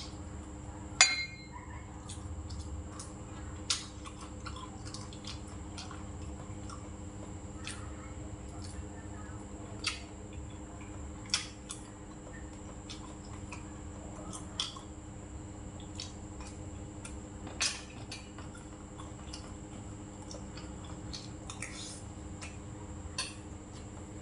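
Eating utensils clinking against a stainless-steel rice bowl during a meal: a few sharp separate clicks, the loudest about a second in with a short metallic ring, over a steady low room hum.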